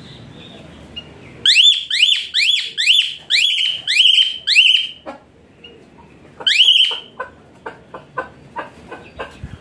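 Javan pied starling singing: a quick series of about eight loud whistled notes, each rising then falling, about two a second, then one more after a pause, followed by a run of short clicking chatter notes.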